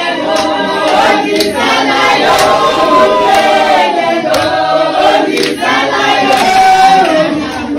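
A group of men and women singing together in unison, with a sharp beat about once a second.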